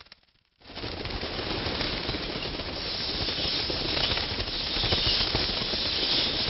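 A dense rushing flutter of many bat wings, like a swarm flying past. It starts abruptly about half a second in and swells slightly toward the middle.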